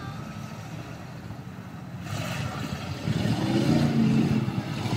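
Off-road SUV engine revving hard as it ploughs through a mud pit, with mud and water splashing. It gets louder about three seconds in, over the steady low running of other engines.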